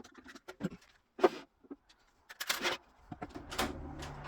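Folding wing brackets on a miter saw station being tried out: a few sharp knocks and clicks with a short scraping rasp between them.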